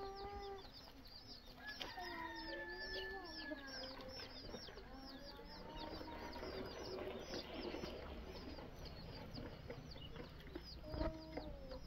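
A brood of young chicks cheeping nonstop, short high peeps several a second, with a mother hen clucking in lower, longer calls near the start and again about two to four seconds in.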